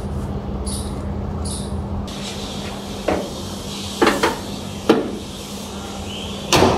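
A few short, sharp knocks and clunks, four of them spread over the second half, over a steady low hum.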